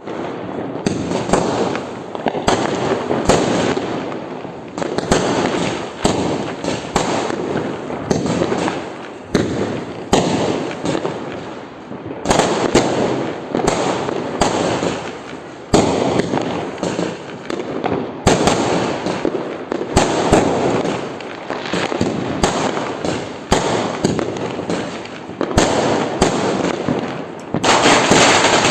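Firecrackers and fireworks going off one after another: sharp bangs over constant crackling, the noise swelling and easing in waves.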